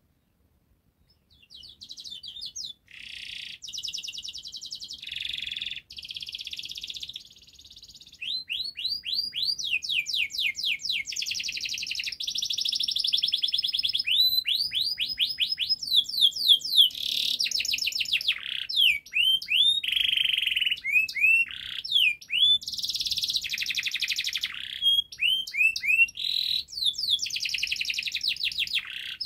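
Domestic canary singing a long, unbroken song of fast trills, rolls and quick repeated notes, with rising and falling sweeps; the song starts about a second and a half in.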